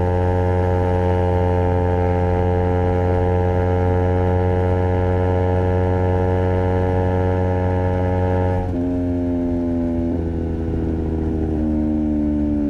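Honda CBR250RR parallel-twin engine through a Project 79 slip-on exhaust, held at steady high revs for most of the stretch. About nine seconds in, the engine note drops sharply, then falls in a couple more quick steps as the revs come down.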